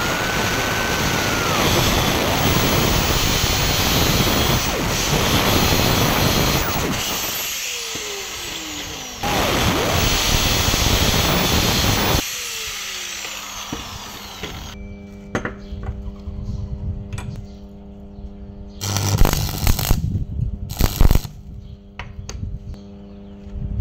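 Angle grinder cutting small pieces of steel plate, running in two long stretches and spinning down with a falling pitch after each. Later, over a steady hum, an arc welder strikes with two short loud bursts near the end.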